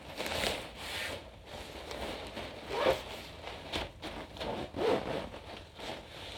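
Nylon carry bag rubbing and rustling as it is handled, a series of irregular swishes with a couple of louder ones about three and five seconds in, and some zipper sound.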